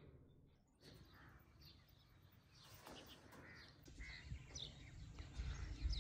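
Faint outdoor bird calls, crows cawing among them, with a low rumble rising near the end.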